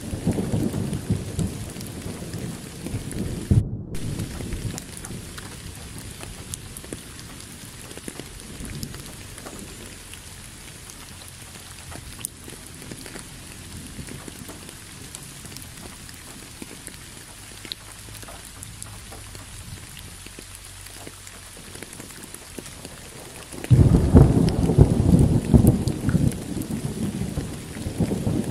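Steady hiss of rain with low rolling rumbles of thunder, the loudest rumble beginning near the end. The sound cuts out for a moment about four seconds in.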